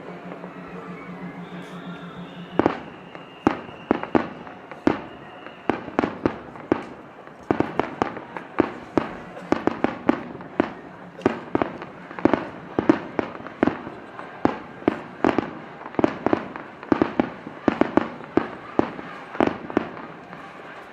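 Aerial fireworks bursting in a rapid star mine barrage: sharp bangs, sparse at first, then several a second from about a third of the way in.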